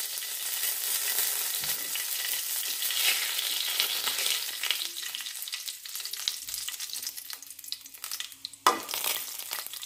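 Fenugreek seeds and two bay leaves sizzling and crackling in hot mustard oil in an aluminium kadhai. The sizzle thins out about halfway through, and there is one sharp knock near the end.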